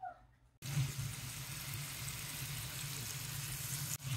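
A block of beef searing in hot oil in a frying pan: a steady sizzle that starts abruptly about half a second in. This is the browning stage for roast beef.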